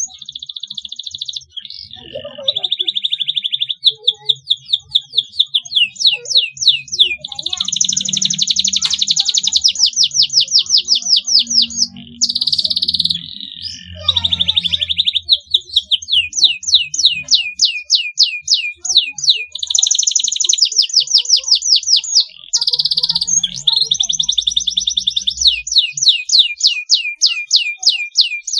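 Domestic canary singing a long song of rapid repeated chirps, rolls and whistled trills, changing phrase every few seconds with only brief pauses.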